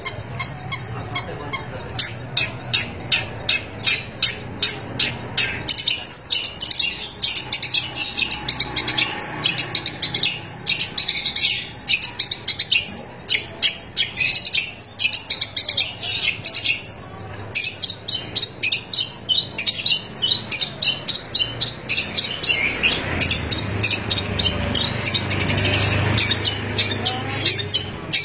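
Long-tailed shrike (cendet) singing nonstop in full song: a fast, unbroken stream of short, sharp chattering notes, several a second.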